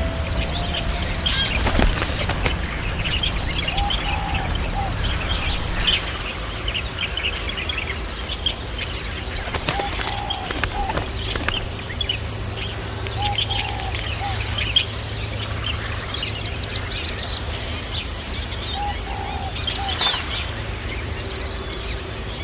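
A chorus of wetland birds: many short, high chirps and twitters throughout, with a lower short call repeated about four times.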